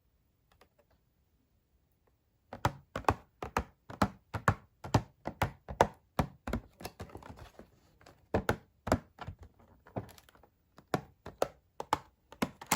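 A run of sharp taps and clicks from hands working on toy packaging, about two or three a second, starting a couple of seconds in, with short pauses.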